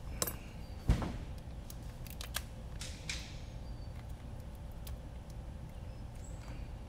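Light clicks and knocks of small clear plastic motor cases being handled and opened, the strongest knock about a second in, with a brief rustle a little later, over a faint low hum.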